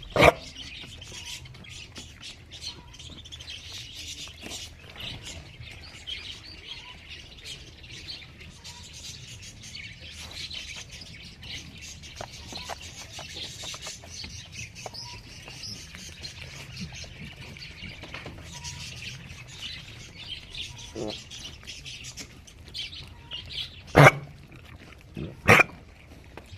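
Small birds chirping in a steady background chorus, with two brief loud sharp sounds near the end.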